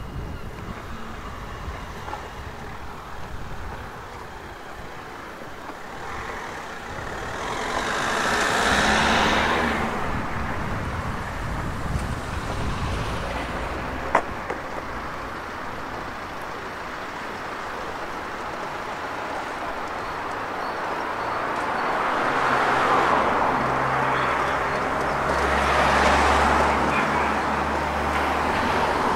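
Road traffic: vehicles passing twice, each swelling and fading, the second with a low engine hum under it. A single sharp click about fourteen seconds in.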